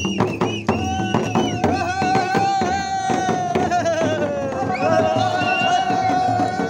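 Nepali shamans' dhyangro frame drums beaten in a steady rhythm, with voices holding a long, wavering chanted note over them that dips in pitch about four seconds in and then rises again.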